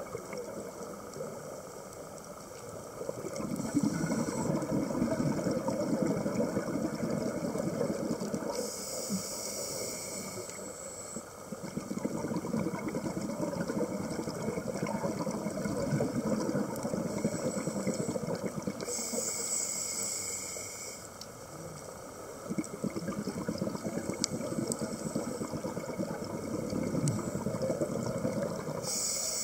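Scuba regulator breathing heard underwater: a hissing inhale about every ten seconds, three in all, each followed by several seconds of bubbling as the exhaled air vents.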